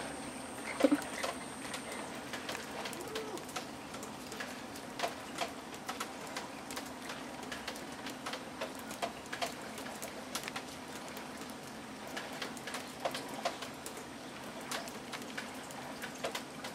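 Light rain pattering: irregular drop ticks over a steady hiss, with one brief louder sound about a second in.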